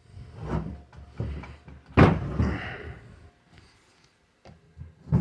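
Handling noises: clunks and rustling as something is moved, with a loud thump about two seconds in.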